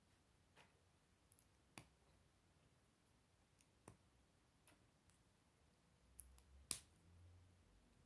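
Plastic K'nex connectors and rods clicking as they are snapped together by hand: about eight short, scattered clicks over a quiet background, the sharpest one near the end.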